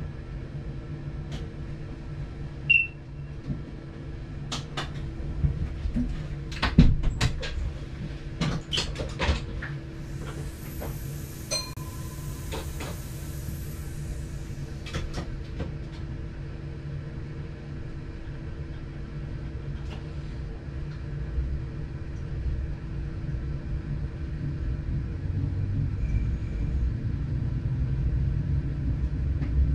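Diesel multiple unit running, a steady low rumble with a hum. A few seconds in comes a run of sharp wheel clacks over the track, then a brief high hiss, and near the end the rumble grows louder as the train picks up speed.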